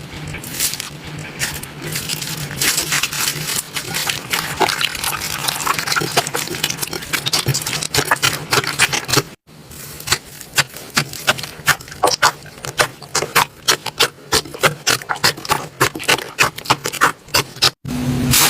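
Slime being squeezed and poked by hand, giving a dense run of small irregular clicking pops and crackles. The sound breaks off briefly about nine seconds in, then another stretch of the same popping follows.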